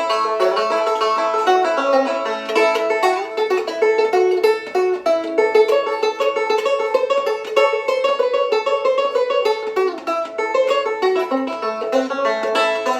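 Hatfield Walnut Special resonator banjo with a walnut neck and resonator, picked in a fast continuous run of bright plucked notes.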